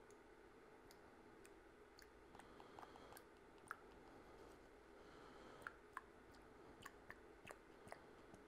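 Near silence with faint, scattered small clicks and ticks from handling a plastic squeeze bottle as fluid is filled into a radial master cylinder's reservoir.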